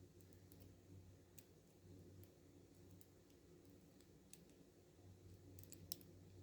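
A few faint, scattered clicks of a hook pick and tensioner working the pins inside a Paclock 90A padlock held in the hand, over near-silent room tone.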